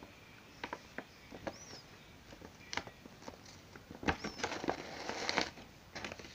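Rigid plastic packaging being handled: scattered small clicks and rustles, busier partway through, with a couple of short high squeaks.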